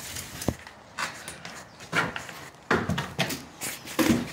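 Irregular knocks, scrapes and rustling of a person moving about in a cramped space inside a boat's hull, with the handheld camera being jostled. The loudest knocks come about 2 s and 4 s in.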